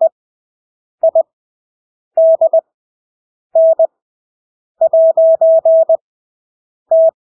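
Morse code (CW) practice tone: one steady mid-pitched beep keyed on and off in dots and dashes at 20 words per minute. Farnsworth spacing sends each character at full speed with gaps of about a second between characters, about six characters in all, the longest near the end.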